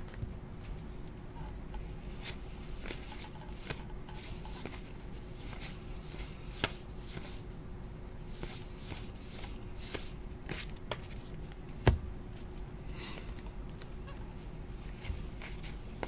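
A stack of paper baseball trading cards being flipped through by hand, cards sliding and clicking against each other one after another in quiet, irregular snaps and rustles, with a faint steady hum behind.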